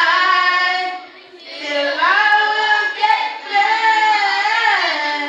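A single high voice singing slow, drawn-out notes that glide in pitch. The singing breaks off about a second in and resumes after a short breath.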